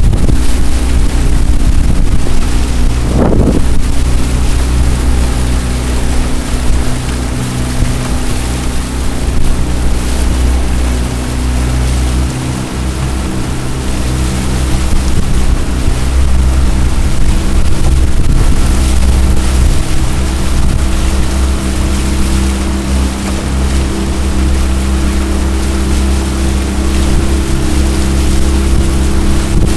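Jon boat's outboard motor running steadily under way, with water rushing past the hull and wind on the microphone.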